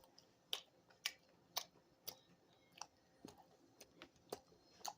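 Faint, sharp clicks or ticks, about two a second, slightly irregular.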